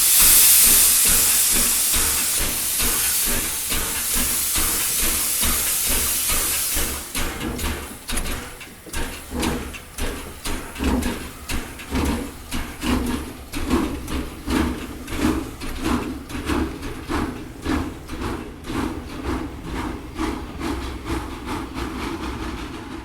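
Steam locomotive pulling away: a loud hiss of venting steam for the first seven seconds or so, then exhaust chuffs starting at a little over one a second and gradually quickening as it gathers speed.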